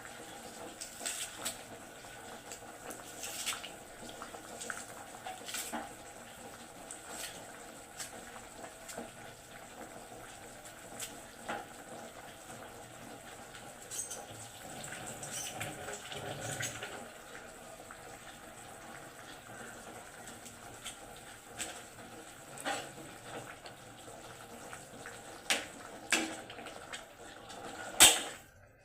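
Kitchen sounds while making soup: a steady watery hiss with scattered clinks and knocks of utensils against pots or dishes, and one sharp knock near the end.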